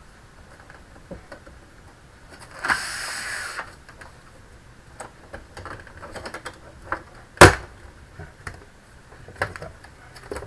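An all-in-one PC's opened casing and screen being handled: a short scraping hiss about 3 s in, scattered light clicks, and one sharp knock about 7 s in.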